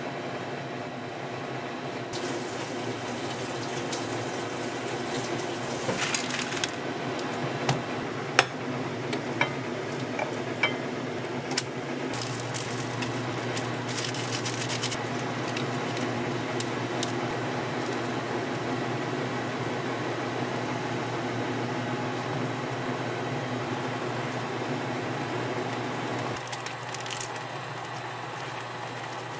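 Creamy rosé sauce simmering and bubbling in a ceramic frying pan over a steady low hum. It is stirred with a wooden spoon, and noodles and seasoning are added, with a handful of sharp taps and clicks about 6 to 12 seconds in.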